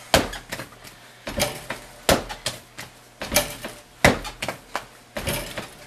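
Porcelain clay being hand-wedged on a work table: repeated thuds and knocks as the lump is pushed down and rolled over, about one heavy stroke a second with lighter knocks between. The wedging mixes soft clay into stiffer clay.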